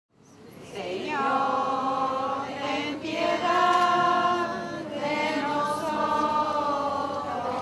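A group of voices singing a prayer together in slow, drawn-out phrases, fading in over the first second.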